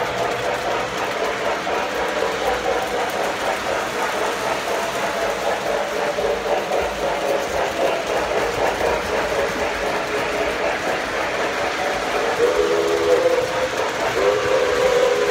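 Electric model train running on its layout track: a steady rolling rattle of wheels on rails. Near the end the locomotive sounds two blasts of its horn, the second one longer.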